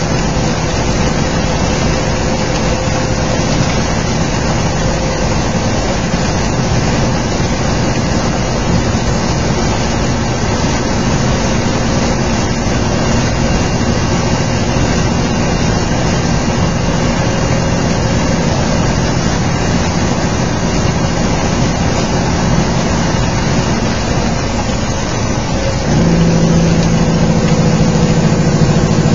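Heavy rain and road spray hiss on a semi-truck's cab and windshield, with its diesel engine running steadily underneath. About 26 seconds in, the engine note grows louder and deeper for a few seconds.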